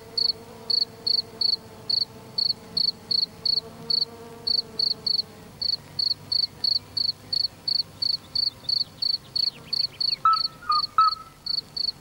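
Crickets chirping at dusk in a steady, even rhythm of about two and a half high chirps a second. A faint low held tone sounds under them in the first half, and short lower whistled notes come in near the end.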